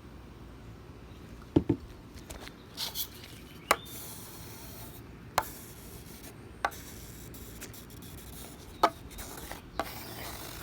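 Putty knife spreading a thick coat of teak oil across an oak slab: a soft, steady scraping of the blade on the wood, broken by scattered sharp clicks and taps.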